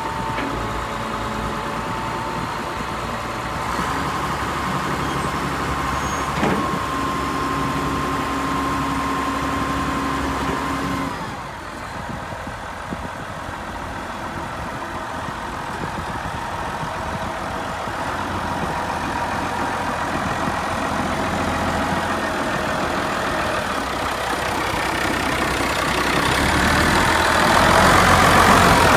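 Case IH 5140 Maxxum tractor's six-cylinder diesel engine running while the front loader is worked. A steady whine glides down and stops about eleven seconds in. The engine gets louder near the end as the microphone comes close to the tractor.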